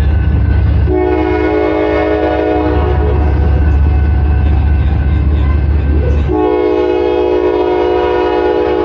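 Train horn sounding two long, steady, chord-like blasts, one starting about a second in and another about six seconds in, over a steady low rumble.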